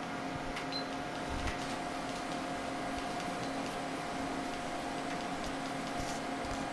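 Steady electrical hum of equipment running in a small room, with a few faint ticks.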